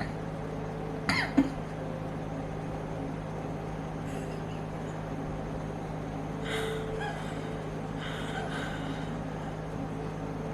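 A person gives two short cough-like bursts about a second in, then fainter breathy voice sounds in the middle, over a steady low hum.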